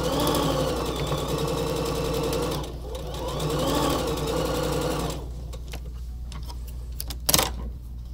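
Electric sewing machine stitching a seam through quilt patchwork pieces, in two runs of about two and a half seconds with a brief pause between. It then stops, and a single sharp click sounds near the end.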